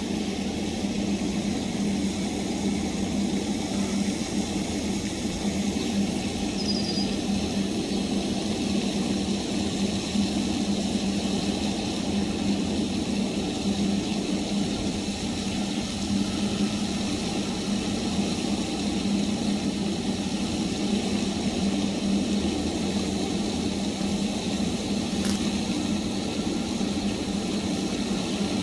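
Steady mechanical drone, like a motor running, with a strong low hum that does not change. A short high chirp sounds about seven seconds in, and a single sharp click near the end.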